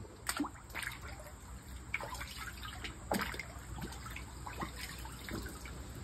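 Water dripping and trickling into a chest-freezer cold plunge tub in scattered small drips and splashes, running off a pool skimmer net lifted out of the water after stirring.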